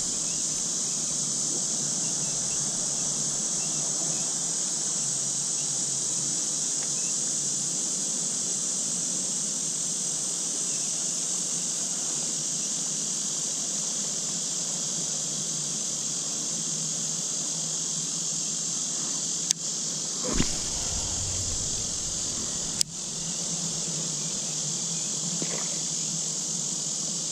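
A steady, high-pitched insect chorus drones without a break. A few brief knocks come about two-thirds of the way through.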